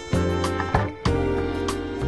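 Instrumental background music with a beat.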